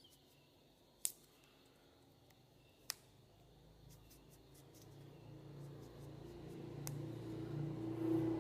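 Two sharp snips of scissors cutting foam, about two seconds apart, then a low droning hum that grows steadily louder through the second half.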